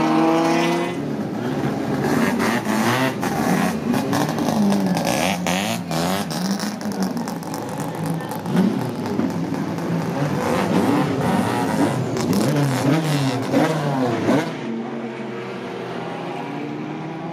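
Nissan 510 Bluebird race car's engine revved again and again, its pitch climbing and falling, with many sharp cracks from the exhaust. About fourteen seconds in it settles to a steady idle.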